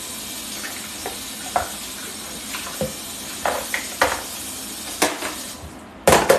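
Kitchen faucet water running into a stainless steel sink while a black plastic steamer part is rinsed, with scattered knocks of the part against the sink. Near the end the water shuts off and the part clatters loudly into the sink.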